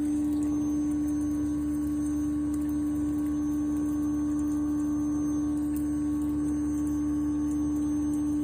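Daikin ductless heat pump running in its defrost cycle: a steady machine hum with one strong held tone over a low rumble.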